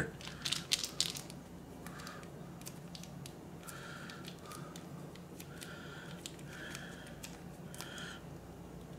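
Small plastic seasoning sachet crinkling and squeaking faintly as fingers twist and pull at its tear notch, struggling to rip it open. A few crinkles in the first second, then several short squeaks spread through the rest.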